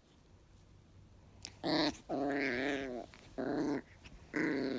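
A small long-haired Chihuahua play-growling over a plush toy: four short, wavering growls in a row, starting about a second and a half in.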